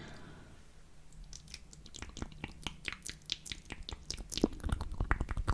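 Close-up ASMR mouth sounds: quick wet clicks and smacks of lips and tongue right at the microphone, sparse at first and coming thick and fast after about a second and a half.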